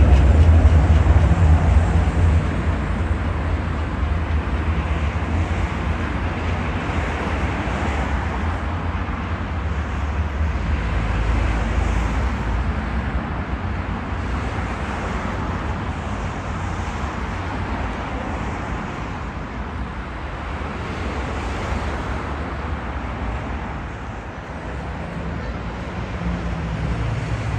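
Steady city road-traffic noise with cars passing, after a tram's low rumble fades away in the first few seconds.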